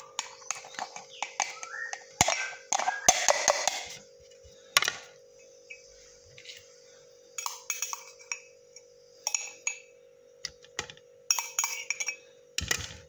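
Glassware and kitchen utensils clinking and knocking in scattered clusters as strained carrot juice and pulp are handled, over a steady faint hum.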